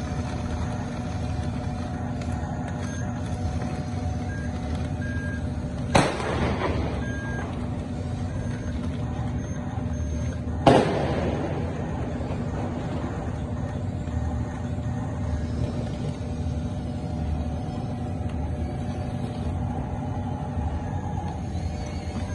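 RC model bulldozer on crawler tracks running: a steady mechanical drone with short, repeated high beeps like a reversing alarm. Two sharp knocks ring out, about six and eleven seconds in.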